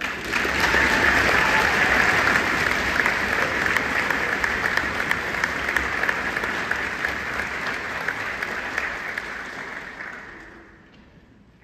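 Audience applauding, starting at once, holding strong for about ten seconds and then dying away.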